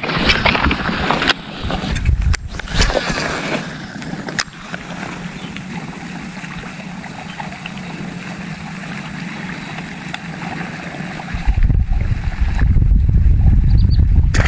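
Strong wind blowing over the microphone, with a few sharp knocks in the first few seconds; the low buffeting gets much heavier about eleven seconds in, as a gust hits.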